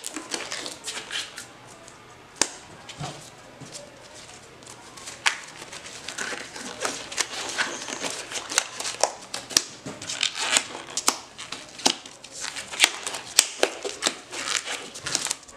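Rustling and crinkling of black disposable gloves being pulled onto the hands, with scattered light clicks and taps of handling.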